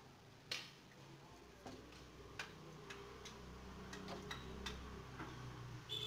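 About eight sharp clicks and taps, sparse and irregular, over a faint low hum in the middle.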